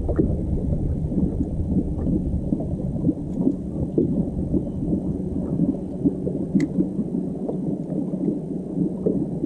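Wind buffeting a boat-mounted camera's microphone and water lapping against the fishing boat's hull: a steady low rumble with many small splashy knocks.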